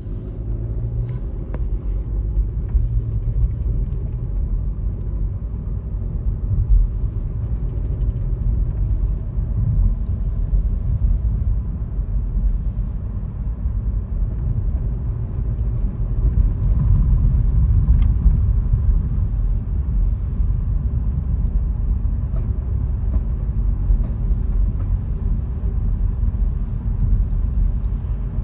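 A 2015 VW Polo 1.2 TSI's turbocharged four-cylinder petrol engine running, heard as a steady low rumble; the owner reports that it knocks under strain and has lost power.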